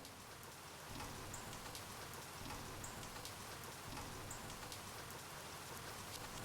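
Faint, steady rain-like hiss with light scattered ticks, and a small high blip repeating about every second and a half.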